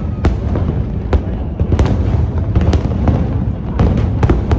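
Fireworks display exploding: a steady booming rumble with many sharp crackling bangs, coming in clusters.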